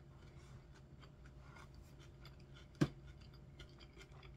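Quiet eating sounds: small crunches and light clicks of a plastic fork working in a plastic container of salad, with one sharper click about three seconds in.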